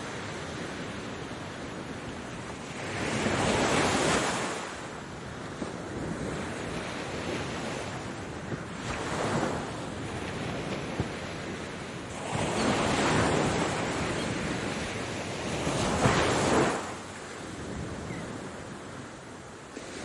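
Ocean waves breaking on the shore, four louder surges over a steady wash of surf.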